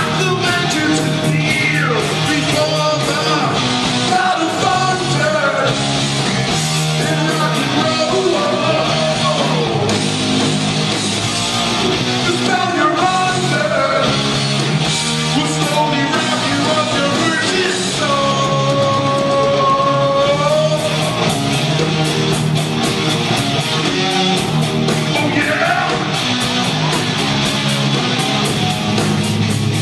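Hard rock band playing live, with distorted electric guitars over bass and drums; a lead line holds one long note about two-thirds of the way through.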